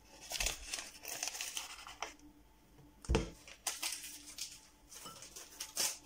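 Kitchen handling sounds while baking powder is added to a plastic bowl of flour: crinkling and rustling of handled packaging, with two dull knocks, one about half a second in and a louder one about three seconds in.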